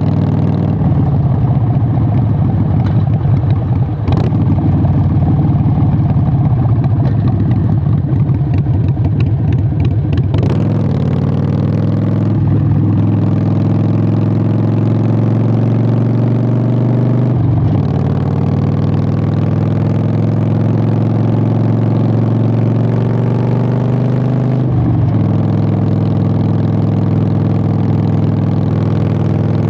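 Harley-Davidson Sportster 883's air-cooled V-twin through Vance & Hines Short Shots exhaust: an uneven, loping low-speed rumble for the first ten seconds or so, then a blip of the throttle as it pulls away. Its pitch climbs steadily under acceleration and drops sharply at each upshift, roughly twelve, seventeen and twenty-five seconds in.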